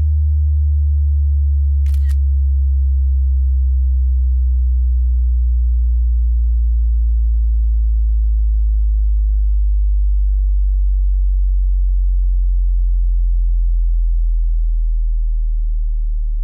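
Subwoofer test tone: a loud, deep bass sine tone slowly falling in pitch, with one sharp click about two seconds in.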